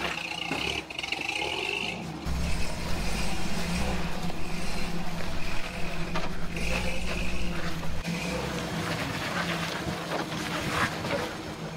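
Toyota FJ40 Land Cruiser's engine running at low revs as it crawls over granite rock, a steady low drone that grows louder about two seconds in.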